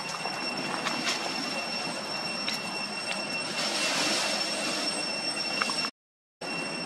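Outdoor background noise: a steady high-pitched whine over a broad hiss, with a few faint knocks and a swell of hiss midway. The sound cuts out completely for about half a second near the end.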